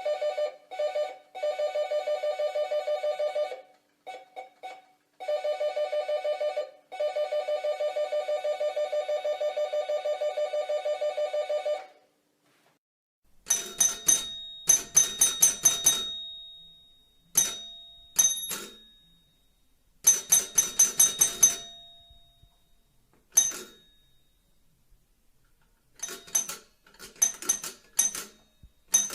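Doorbells ringing. For about the first twelve seconds an electric bell trills rapidly at a steady pitch in several bursts of different lengths. After a short pause a brighter, higher-pitched bell rings in quick clusters of separate strikes, some long runs and some single rings.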